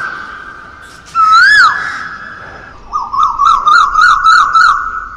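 Loud whistling: two rising-and-falling swoops, a held note that fades, then about two seconds in a quick warbling run of about six up-and-down notes.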